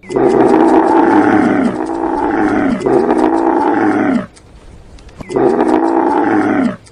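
Camel calling: a run of long, rough, drawn-out calls, each falling in pitch at its end, then a short pause about four seconds in and one more call.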